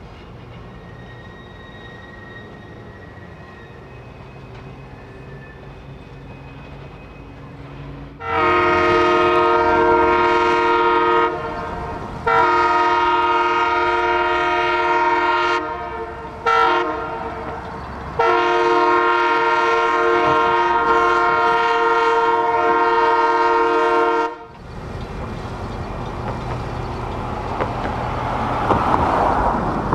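Train horn sounding the grade-crossing signal: two long blasts, a short one, then a final long blast, each a chord of several steady tones. After the horn, the train's rumble rises and passes close by near the end.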